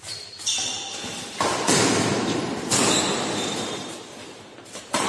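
Badminton rally: several sharp racket strikes on a shuttlecock, roughly a second apart, each echoing around a large hall.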